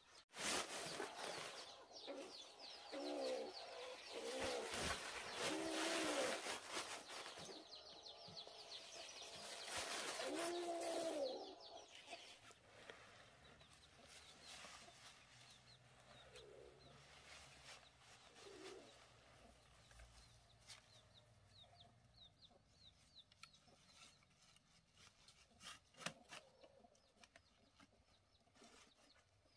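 Chickens clucking and squawking over a loud rustling noise that stops after about eleven seconds. Quieter clucks and scattered clicks follow.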